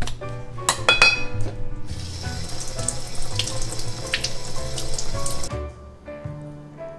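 Kitchen tap water running into a sink as an abalone is rinsed under the stream, starting about two seconds in and cutting off suddenly about five and a half seconds in. Before it, a few sharp clicks about a second in.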